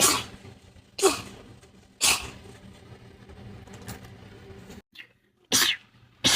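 A person sneezing in a rapid string: three sharp sneezes about a second apart, a short pause, then two more near the end, part of a fit of many sneezes in a row.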